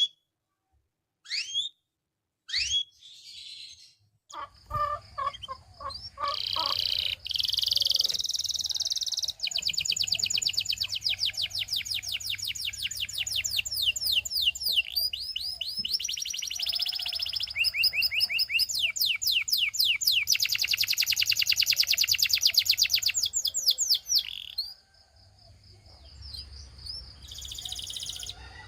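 A Belgian canary singing: a few separate chirps at first, then from about four seconds a long song of rapid trills, fast runs of repeated falling notes, that breaks off briefly near the end. A low steady hum lies underneath.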